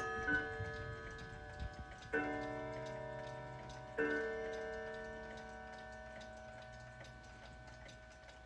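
Hamilton Headmaster schoolhouse wall clock striking two o'clock: the ringing left by an earlier note dies away, then two strikes come about two seconds apart. Each rings on for several seconds and slowly fades, with the movement ticking steadily underneath.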